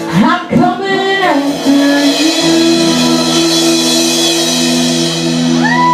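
Band music led by guitar, with long held notes and notes that slide up and back down, once about a second in and again near the end.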